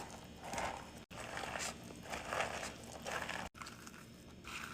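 Kibble and raw dog food being stirred together in a dog bowl: repeated crunchy, rustling scrapes, broken twice by brief gaps.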